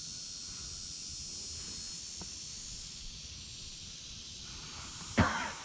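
Steady high-pitched buzzing of insects in a field, with a single sharp knock about five seconds in.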